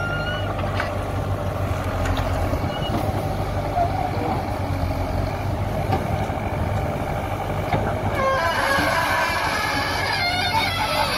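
JCB backhoe loader's diesel engine running steadily under load as the bucket digs soil. In the last few seconds a run of pitched honking calls rises over it.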